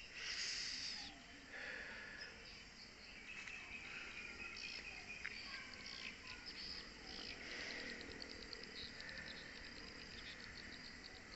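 Insects trilling steadily at a high pitch in tropical vegetation, with a louder burst of chirring in the first second and a few short chirps scattered through.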